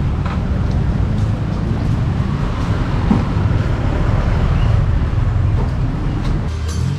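Street traffic noise: a steady low rumble of vehicles on a busy road.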